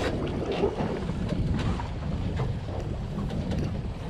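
Wind buffeting the microphone over the steady rumble of a boat at sea, with a few faint clicks.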